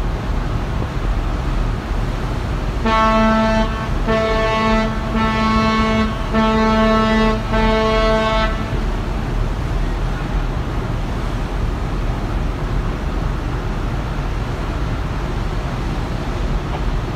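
A ship's whistle sounds about five short blasts in a row, each about a second long. It starts a few seconds in and stops after about six seconds. This is the danger signal that goes with an emergency breakaway during underway replenishment. Steady wind and sea rush underneath throughout.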